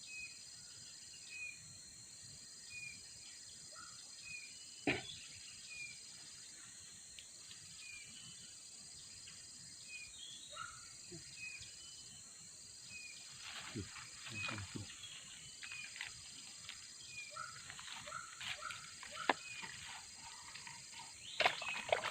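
Tropical forest ambience: a steady high-pitched insect drone with a second buzzing insect switching on and off. Over it, a short chirp repeats about every second and a half. A few rustles and knocks come now and then, more of them near the end.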